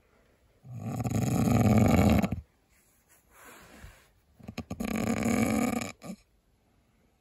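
A sleeping person snoring: two loud snores, each about two seconds long, with a fainter breath between them.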